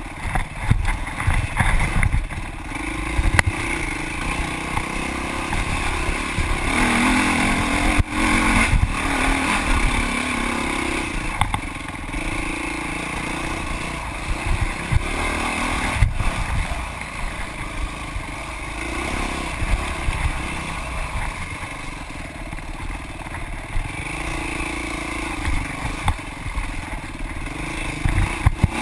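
Dirt bike engine revving up and down again and again as the bike is ridden hard over rough trail. A few sharp knocks and rattles come from the bike hitting bumps.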